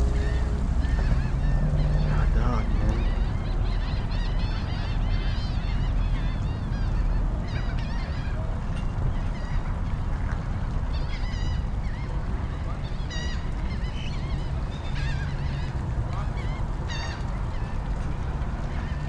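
Waterbirds calling over and over in short honking calls, most in the first half, with clusters of calls near the middle and toward the end. A steady low rumble runs underneath.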